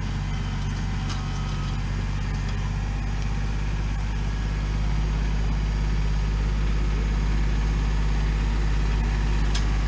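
An engine running steadily at a constant low pitch, getting slightly louder about halfway through.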